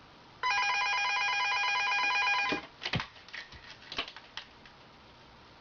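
Wall-mounted telephone ringing with a rapid trilling electronic ring for about two seconds. It cuts off, and several short knocks and clatters follow as the cat paws at the phone.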